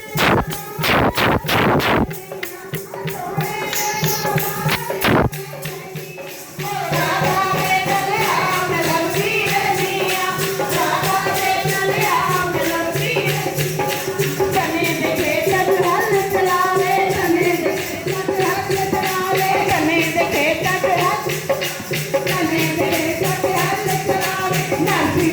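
Devotional kirtan singing with a steady, fast jingling hand-percussion beat like a tambourine. A few sharp strikes in the first two seconds and another about five seconds in, then the full singing and jingling start about seven seconds in.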